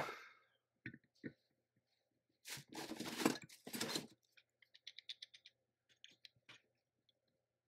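Hand-tool work on an antique cast-iron vise: a steel pick knocking, clicking and scraping on the metal around the lead screw's collar pin. There is a sharp knock at the start, a few single clicks, a stretch of denser clatter and scraping about midway, then a quick run of light ticks.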